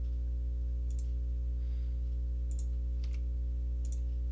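About four sharp computer mouse clicks, spaced irregularly, while a CAD sketch is being drawn. Under them runs a steady low electrical hum.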